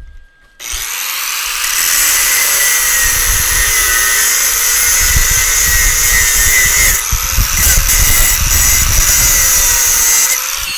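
Power tool with an abrasive cut-off wheel cutting through steel square stock: it starts up about half a second in and runs loud and hissing, its motor pitch sagging under load. It briefly spins back up around seven seconds and winds down at the end.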